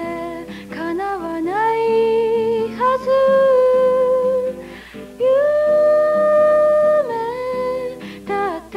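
Slow music: a high voice hums a wordless melody of long held notes that glide smoothly from one to the next, over a soft sustained accompaniment.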